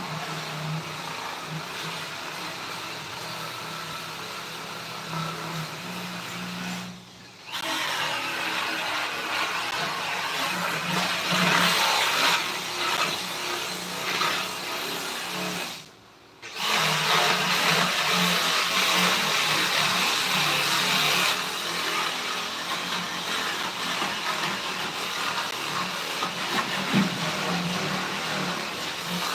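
A small electric power tool running steadily, its motor hum mixed with a loud hiss, cutting out briefly twice, at about 7 and 16 seconds in.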